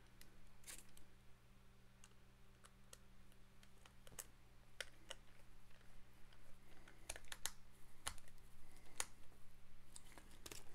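Faint irregular clicks and ticks of a small precision screwdriver driving screws into a plastic satellite-speaker housing, with a low steady hum underneath.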